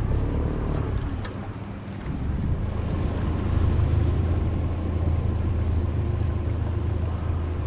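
Small outboard motor on an aluminium jon boat running steadily, pulling the boat away from a wall; it picks up about two and a half seconds in and then holds a steady hum.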